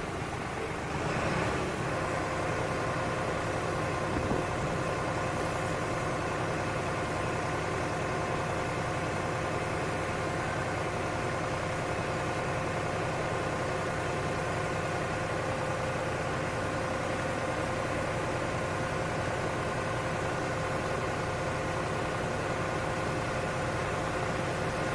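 Daema F103 farm machine's engine running steadily. About a second in, a steady whine with several even tones joins in and holds.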